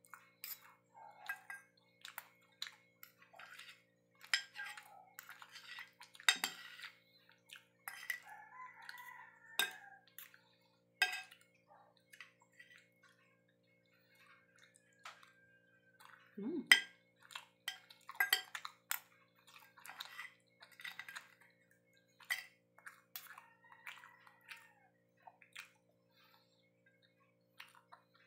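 Metal fork and spoon clinking and scraping on a ceramic plate in short irregular taps, some ringing briefly, as rice, egg and tocino are scooped up, with a faint steady hum underneath.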